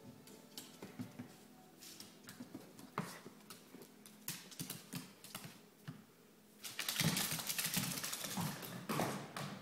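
An Italian greyhound's claws clicking and tapping on a hardwood floor as it moves about. About two-thirds of the way through, a louder, denser clatter of taps sets in.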